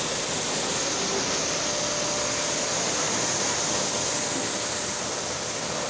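Pressure-washer jet spraying water onto a motorcycle, a steady hiss of spray.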